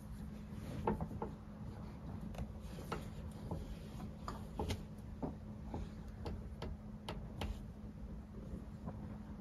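Nylon shell of a down sleeping bag rustling and crinkling in short scuffs as it is pulled up and around someone sitting in it, over a steady low hum.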